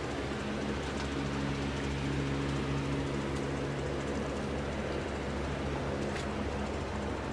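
Steady low mechanical hum with several held low tones.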